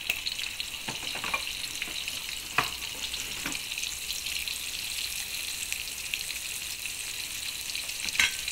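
Sliced onions, cinnamon stick, star anise and cardamom frying in hot oil: a steady sizzle with a few sharp pops and crackles, the loudest near the end.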